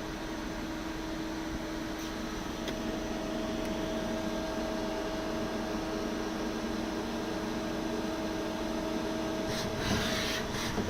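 Hitachi Seiki TS15 multi-tasking CNC lathe running under power: a steady machine hum with a whine, the higher whine growing stronger a few seconds in, and a short burst of noise near the end.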